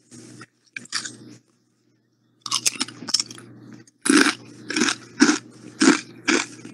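Potato chips being crunched and chewed close to a microphone: a few scattered crunches at first, then steady chewing at about two crunches a second from about four seconds in.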